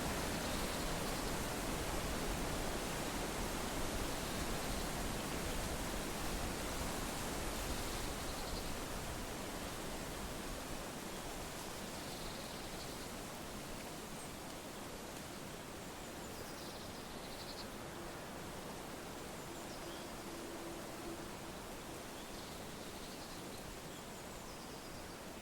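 Wind blowing through leaves: a steady rustling hiss that slowly eases, with a few faint high chirps now and then.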